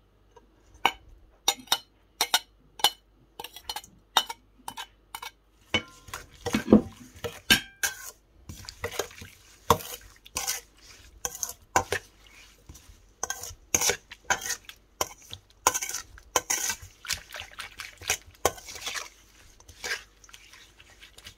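A spoon stirring and tossing salad ingredients in a stainless steel mixing bowl: repeated clinks and scrapes against the metal, about two a second at first, then quicker and more irregular.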